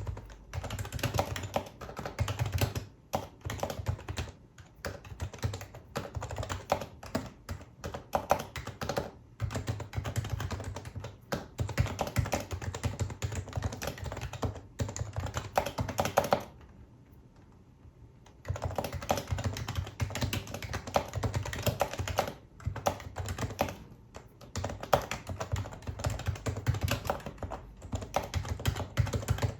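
Typing on a Happy Hacking Keyboard Professional HYBRID Type-S, whose electrostatic capacitive (Topre-style) contactless switches give soft, rounded keystrokes. The keys go in fast, continuous runs with short breaks, and there is one pause of about two seconds a little past the middle.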